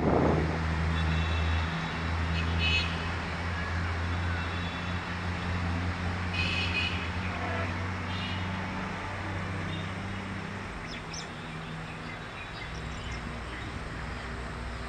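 Diesel locomotive approaching with its engine running as a steady low drone, the tone shifting about two-thirds of the way through.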